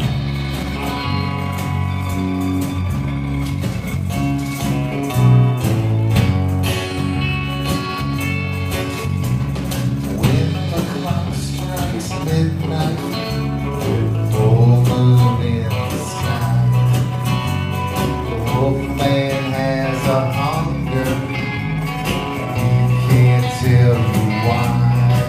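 A live rock band playing, with electric and acoustic guitars, bass guitar and drums.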